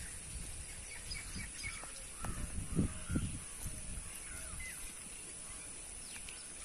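Small birds chirping and calling in short scattered notes over a steady high hiss, with a few soft low thumps about two to three seconds in.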